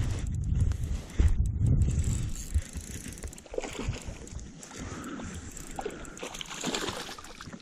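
Wind buffeting the microphone with handling noise for the first two seconds or so, then light splashing at the water's surface as a hooked fish thrashes close to the bank, with small scattered clicks.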